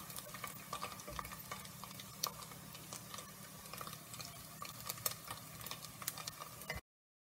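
Oil sizzling as fried dried sprats are lifted out of a pot with a metal slotted spoon, with light clinks of the spoon against the pot. The sound cuts off abruptly near the end.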